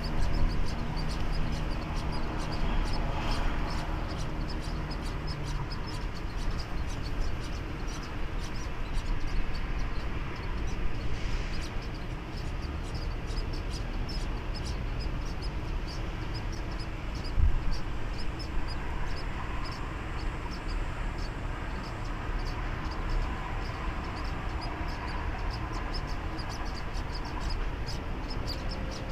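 Outdoor ambience: a steady low rumble under a high, regular chirping, about three chirps a second.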